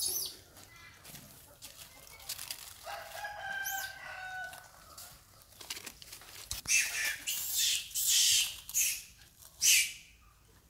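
Animal calls. A drawn-out pitched call comes about three seconds in, then a run of loud, shrill cries in the second half.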